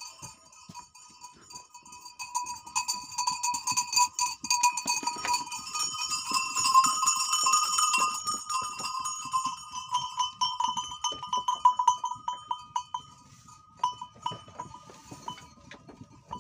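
Bells on a flock of goats and sheep ringing and clanking continuously as the animals come in. The jangle is busiest in the middle and thins out near the end.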